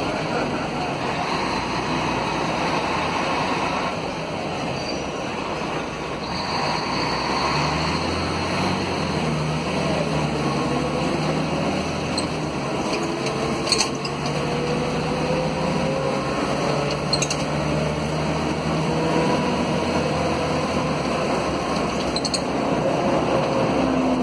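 Mercedes-Benz OM457LA six-cylinder diesel of an O500 UA articulated city bus, heard inside the passenger cabin as the bus pulls away under acceleration. Its pitch rises slowly twice in the second half, over a steady road and cabin noise with a few sharp rattle clicks.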